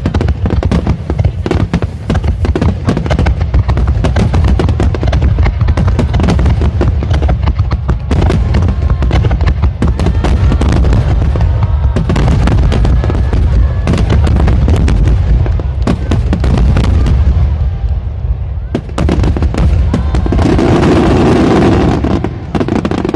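A large starmine fireworks barrage: many aerial shells bursting in rapid, overlapping succession, with heavy booms and crackling. Near the end the bursts thin out and a crowd's cheering and applause rises.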